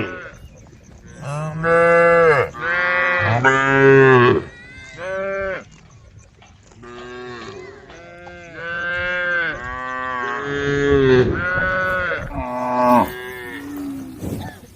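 A herd of cattle mooing: a string of long, drawn-out moos from several cows, one after another and sometimes overlapping, with a brief lull about six seconds in.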